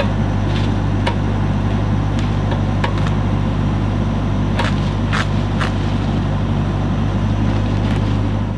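An engine running steadily at a constant speed, with a strong low hum and several short sharp clicks over it.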